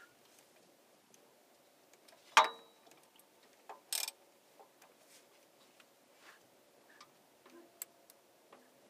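Mostly quiet, with a few light metallic clicks from hand work with a thin metal rod in a diesel engine's injector port. One sharp clink with a brief ring comes about two and a half seconds in, and a short rustle about a second and a half later.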